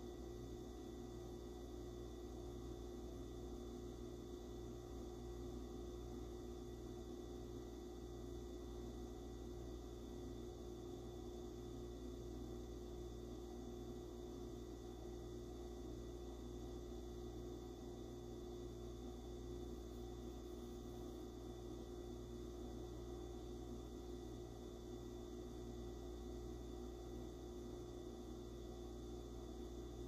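Faint steady room tone: a low hum with a few constant tones over light hiss, unchanging throughout.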